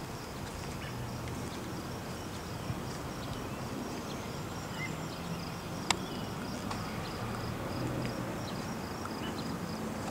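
Outdoor ambience of insects chirping in a steady, evenly pulsing rhythm over a low rumble, with one sharp click about six seconds in.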